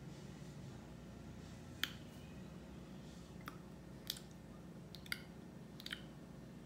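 Six or so short, sharp clicks spaced irregularly over about four seconds, the first, about two seconds in, the loudest, over faint room hum.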